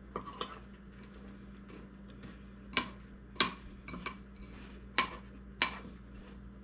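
Spoon clinking against a cereal bowl as cereal and milk are scooped up and eaten: about seven short, sharp clinks at uneven intervals, the loudest about three and a half seconds in.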